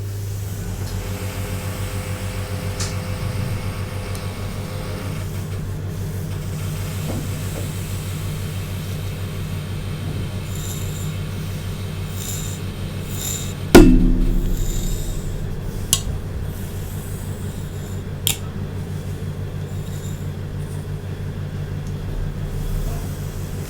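Steady low hum of a small electric motor, buzzing evenly, with a sharp loud clack about fourteen seconds in that rings briefly, and two lighter clicks soon after.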